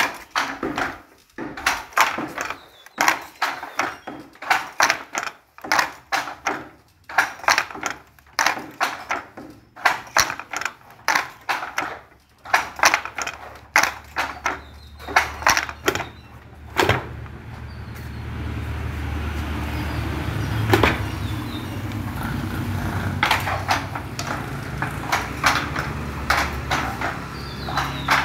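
Wooden fly-shuttle handloom being worked: the shuttle is jerked across the warp by the picking cord and the batten beats the weft into the cloth, giving a run of wooden clacks and knocks, a few each second. About two-thirds of the way in, a steady low rumble rises under the clacks.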